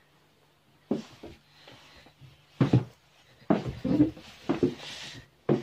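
Footsteps going down the narrow staircase of a converted bus: about six uneven thuds, with a light rustle between the later steps.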